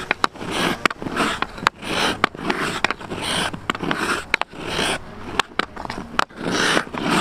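Hockey stick blade and puck in a fast figure-eight stickhandling drill: a scraping swell about every two-thirds of a second, with sharp clicks of the puck against the blade between them.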